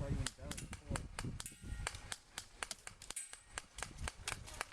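Airsoft guns firing during a skirmish: many sharp snaps in quick, irregular succession, several a second.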